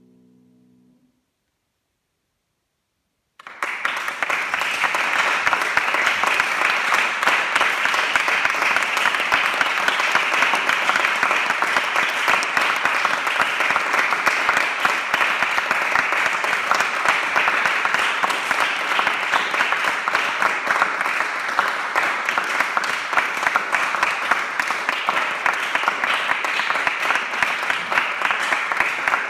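A grand piano's final chord fades out within the first second. After a couple of seconds of silence, applause starts suddenly and carries on steadily.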